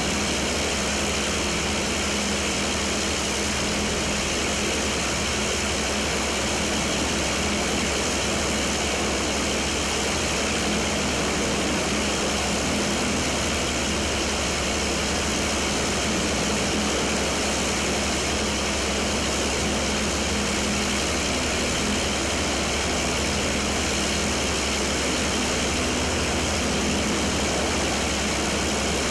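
Fairey Firefly's Rolls-Royce Griffon V12 piston engine running steadily with the propeller turning, an engine-run demonstration on the ground.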